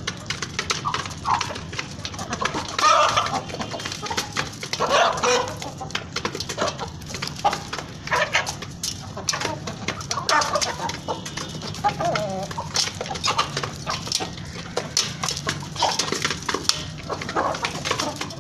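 A flock of Aseel chickens clucking and giving short calls at intervals, over many quick sharp clicks of beaks pecking at feed and the feeder.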